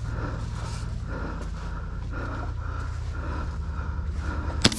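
A person breathing hard close to the microphone over a steady low hum, with one sharp loud crack near the end.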